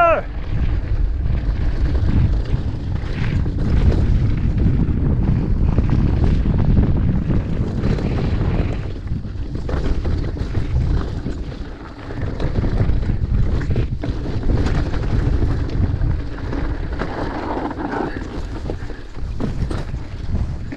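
Wind buffeting the microphone of a mountain bike's action camera during a fast singletrack descent, over the rumble and rattle of the bike rolling on rough, rocky dirt trail. It eases briefly about twelve seconds in.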